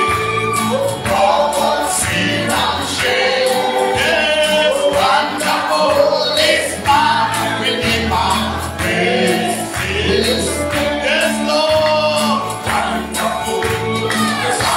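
A group of voices singing a gospel worship song over instrumental backing with a steady beat.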